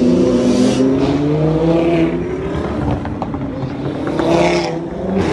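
Motorcycles and cars accelerating past in street traffic, their engine notes rising and falling. Two louder pass-bys come just under a second in and near the end.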